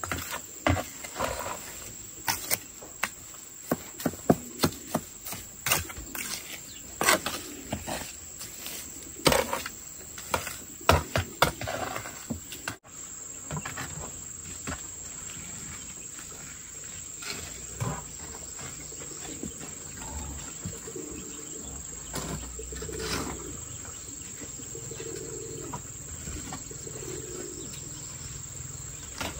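Steel trowel scraping and tapping on a wet concrete stove top, in sharp strokes about twice a second, then softer scraping after a cut about halfway through. A steady high insect drone runs underneath.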